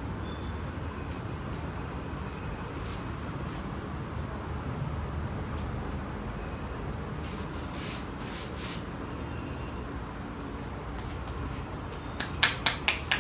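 Steady background hum with a faint high-pitched whine; near the end, a quick run of sharp taps, about five a second.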